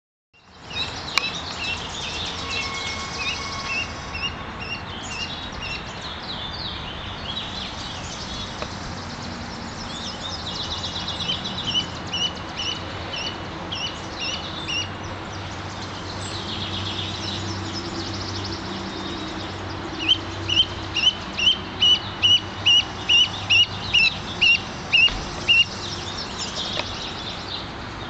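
A lone gosling peeping: short, high, repeated peeps in runs, loudest and most regular near the end at about two a second. These are the distress calls of a chick separated from its parents.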